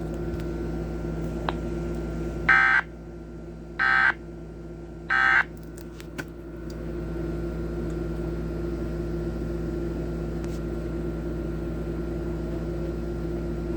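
Emergency Alert System End-of-Message code: three short bursts of SAME digital data tones about a second apart, marking the end of the required monthly test. A steady low electrical hum runs underneath.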